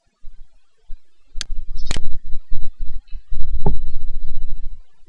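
Low rumble on the microphone that comes and goes, with three sharp computer-mouse clicks at about one and a half, two and near four seconds in.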